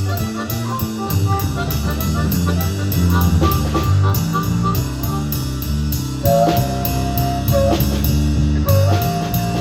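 Band music with drum kit, bass and guitar, the cymbal ticking steadily about four times a second, and a held higher note entering in the second half.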